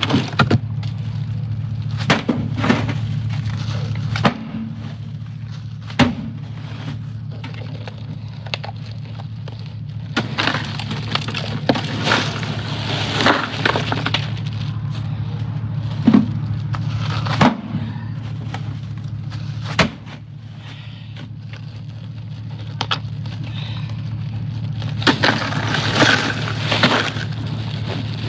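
Bagged ice cubes being handled and broken up. Several sharp knocks, and stretches of cubes rattling and crunching inside crinkling plastic bags, over a steady low hum.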